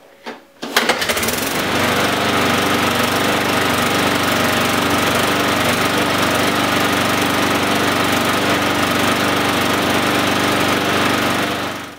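Briggs and Stratton 450E single-cylinder lawnmower engine starting about a second in and running at a steady, even speed with no hunting or surging. Its plastic carburettor's partially blocked jets have just been cleaned. It shuts off near the end.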